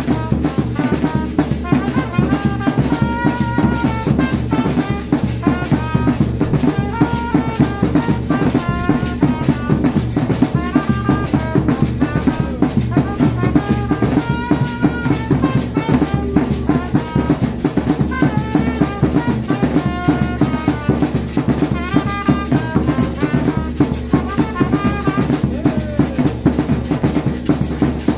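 Drum-and-brass band playing: several large double-headed drums beaten with sticks in a steady, fast beat, with a trumpet playing short repeated melodic phrases over them.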